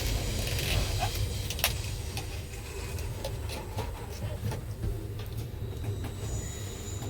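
Amtrak Empire Builder passenger train running: a steady low rumble with scattered clicks and knocks from the wheels and track, and a faint high whine near the end.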